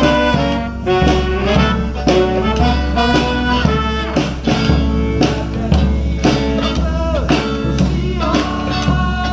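A live band plays a bluesy swing tune: a saxophone carries the melody over strummed acoustic guitar and a steady beat.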